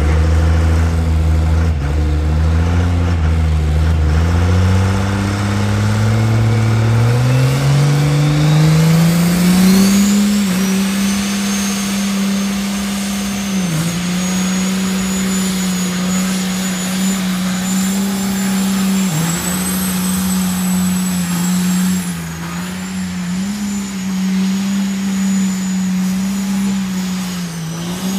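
Dodge diesel pickup revving up over several seconds and then held at high revs during a burnout, with a high whine climbing along with the engine. The revs dip briefly a few times while the rear tyres spin.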